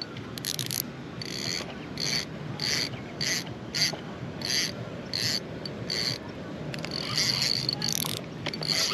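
Spinning reel being cranked while reeling in a hooked fish: a short mechanical whir repeats about every 0.6 seconds as the handle turns, running longer for about a second near the end.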